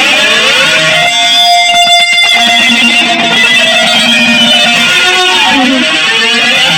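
Loud, dense electric-guitar noise jam: many held and sliding tones piled on one another, with no steady beat.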